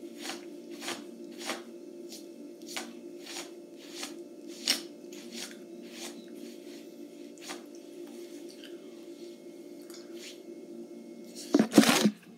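A string of short, sharp rustling clicks, roughly one or two a second, that thin out after the first half, from hands handling something out of sight. Near the end comes a loud burst of bumping and scraping as the recording phone is picked up, over a steady low hum.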